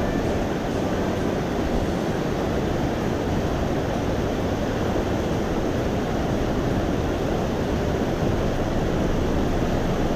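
Steady rushing of a mountain river running high, an even wash of water noise with no breaks.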